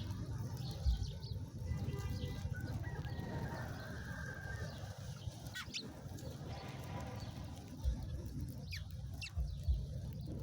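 Birds calling over a low steady rumble: a drawn-out pitched call, then a few quick, sharp downward chirps about halfway through and again near the end.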